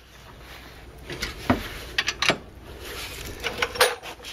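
A handful of sharp, scattered clicks and knocks from hand tools on steel suspension parts as a tight bolt is worked loose.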